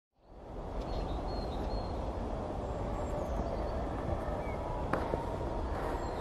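Steady outdoor background noise with a low rumble, fading in over the first half-second, with a few faint high bird chirps and a couple of soft clicks.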